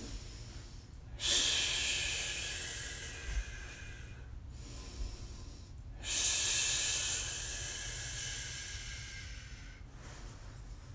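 A man's long, forceful breaths out, two of them about five seconds apart, each starting sharply and fading away over a few seconds: breathing through the pain of deep soft-tissue pressure on the pec minor.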